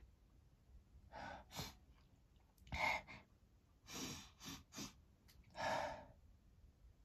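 A woman's breathing in short gasps and sniffs between feather-induced sneezes, about six quick breaths, the loudest about three seconds in.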